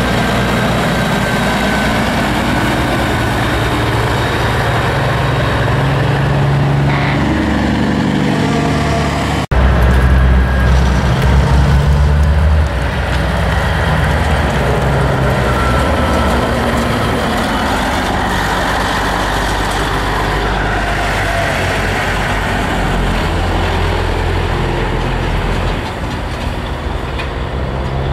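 Diesel semi-truck tractors running as they pass one after another, with engine drone and road noise throughout. About a third of the way in the sound cuts out for an instant, then comes back louder for a few seconds. Near the end an engine's pitch slowly rises.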